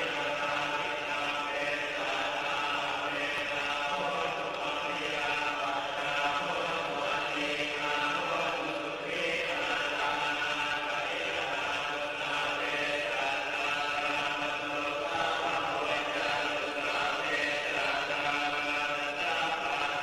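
Buddhist monks chanting together in a steady, droning recitation that runs on without a break.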